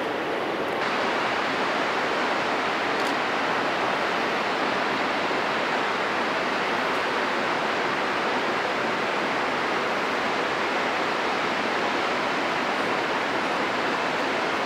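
Steady rush of a fast-flowing river, an even hiss of water with no breaks, growing brighter about a second in.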